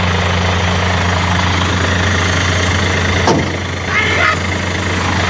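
A steady low engine hum, like an engine idling, with a sharp click about three seconds in and a brief high-pitched sound a moment later.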